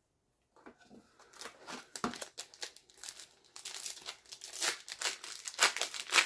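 Wrapper of a trading-card booster pack crinkling and tearing as it is opened. It is an irregular crackle that starts about half a second in and grows louder.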